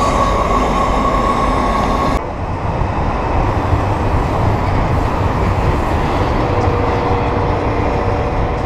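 Freight train running alongside: a steady loud noise of the train, with a thin steady high squeal over it for the first two seconds. About two seconds in the sound changes abruptly at an edit, and the steady train noise carries on.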